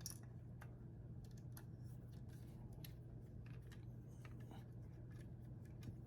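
Faint, scattered small clicks and scrapes of a screwdriver driving a small screw into plastic model-kit parts, over a steady low hum.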